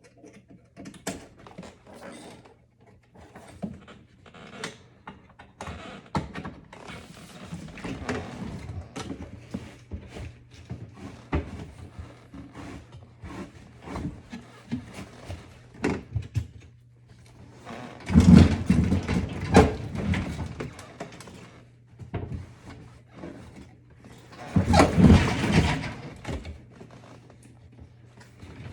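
Knocks, clicks and rattling from hands working on a GE dishwasher's door and control panel, with two louder rattling stretches about 18 and 25 seconds in, over a faint steady low hum.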